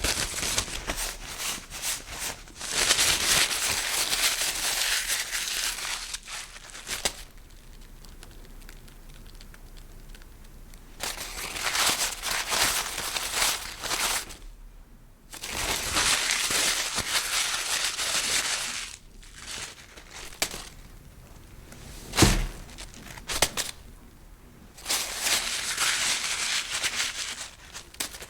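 Paper being crunched and crumpled, in several bouts of dense crackling with quieter pauses between them. A single sharp thump comes about 22 seconds in.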